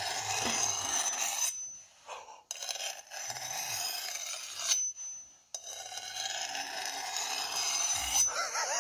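Two steel kitchen knife blades scraped against each other close to a microphone, in three long rasping strokes with short pauses between them. It is heard played back through a tablet's speaker.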